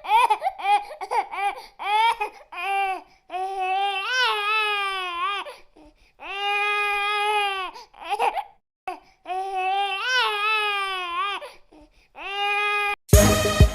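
Domestic cat meowing over and over: a quick run of short meows, then several long drawn-out yowls of about two seconds each.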